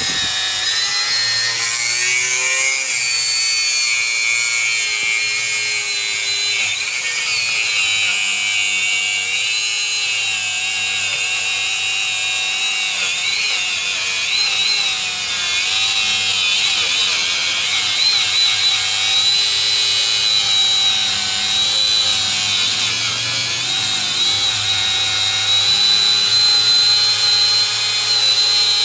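Makita GA5030R 720 W mains-powered angle grinder cutting into a bike lock: a steady, loud grinding with a high whine that wavers in pitch as the disc bites under load.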